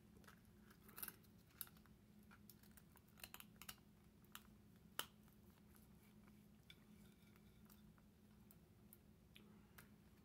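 Faint scattered clicks and scrapes of a serrated knife and fingers working cooked lobster tail meat out of its shell on a plate, over a low steady hum.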